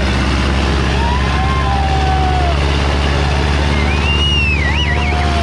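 Sonalika DI 750 III tractor's diesel engine running hard under heavy load, dragging two 16-disc harrows, with whistles and calls from onlookers over it; a rising, warbling whistle near the end.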